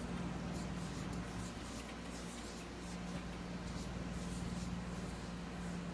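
Room tone: a steady low hum with faint, scattered light rustling and ticks.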